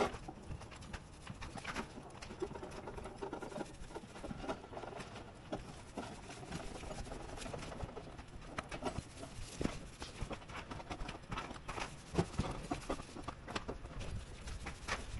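Irregular light knocks and taps with soft rubbing: a paint roller being loaded in its tray and rolled over the roof's base sheet, spreading cold-process membrane adhesive.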